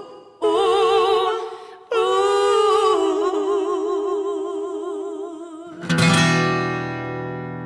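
A woman sings long held notes with vibrato over a live acoustic band, then about six seconds in a final chord is struck on acoustic guitar and bass and left to ring out and fade, closing the song.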